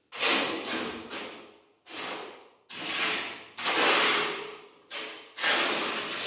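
Notched trowel combing cement tile adhesive across the back of a wood-look ceramic floor tile: repeated scraping strokes, a little over one a second, each starting sharply and fading away.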